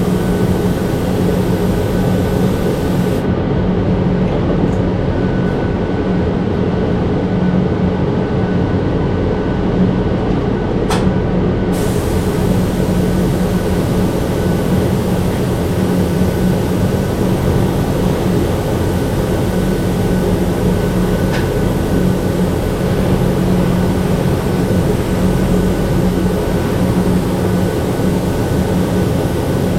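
Spray-painting equipment running steadily: a loud mechanical hum with a strong low tone, and a high hiss of spray air. The hiss stops about three seconds in and comes back around twelve seconds, as the spray gun trigger is released and pulled again.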